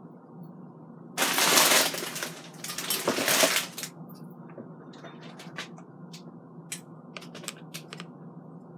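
Plastic bag of oyster crackers crinkling loudly in two bursts of about a second each, followed by a few light clicks and taps of dishes.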